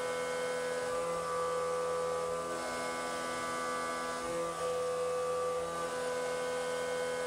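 CNC mill spindle turning a 3/4-inch back-draft finishing cutter at about 5000 RPM in a light finishing pass on 4140 pre-hard steel pocket walls, removing only a few thousandths. It gives a steady high hum whose tone shifts every second and a half or so as the tool ramps along the walls.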